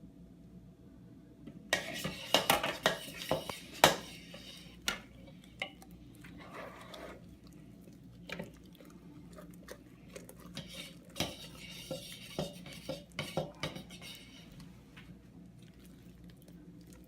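A utensil stirring slime in a bowl as the borax activator is mixed in, clinking and scraping against the bowl. The clinks come thick and fast from about two to four seconds in, then come now and then.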